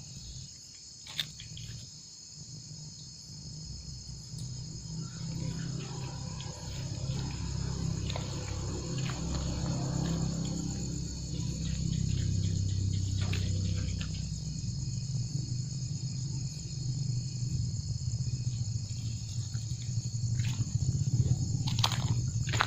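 Crickets and other night insects trilling steadily and continuously, under a low hum that grows stronger a few seconds in, with a few scattered clicks.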